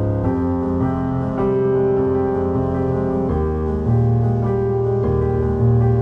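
Background music: slow, sustained keyboard chords, piano-like, that change every second or two.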